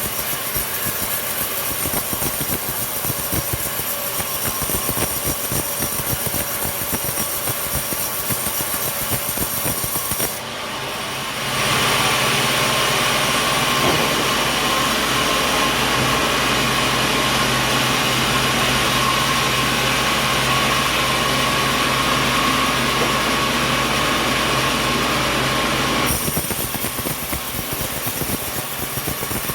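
Sawmill machinery running, a dense clatter with many small knocks. About eleven seconds in it gives way to a louder, steady saw sound with a held tone, as the saw works through coconut wood. Near the end the clattering machinery sound returns.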